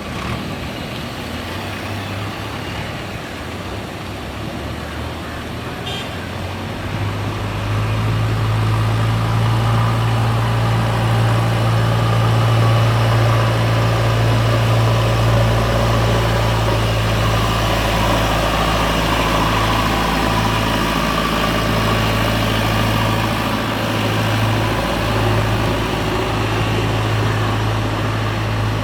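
JCB backhoe loader's diesel engine running with a steady low note, growing louder about seven seconds in.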